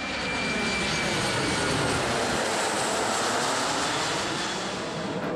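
Twin-engine jet airliner passing low overhead: a steady jet engine roar, with a thin high whine on top that fades out after about a second and a half.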